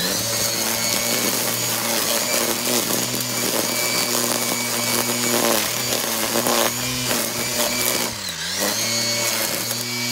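Makita cordless brushless line trimmer running at speed, its nylon line cutting grass, with a steady motor whine. About eight seconds in the motor speed drops briefly and picks back up.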